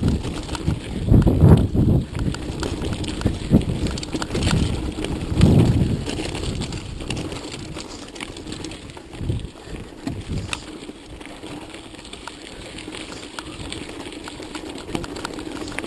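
Mountain bike riding over rough, rocky ground: constant rattling and clicking from the tyres and bike, with heavy low rumbles on the microphone about a second in and again around five seconds in.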